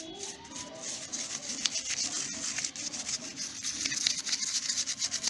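Brush scrubbing carbon deposits off a petrol-wetted motorcycle cylinder head, in quick, uneven scraping strokes.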